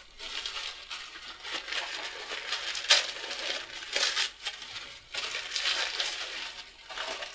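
Tissue paper rustling and crinkling as it is unwrapped by hand, with a few sharper crackles about three and four seconds in.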